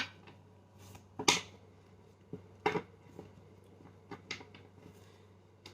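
Tarot cards being handled and laid down on a table: about half a dozen light, sharp taps and flicks spaced irregularly, the loudest just over a second in, over a faint steady low hum.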